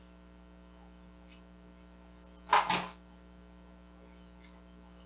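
Steady electrical mains hum, broken about halfway through by one short, loud, noisy burst lasting under half a second.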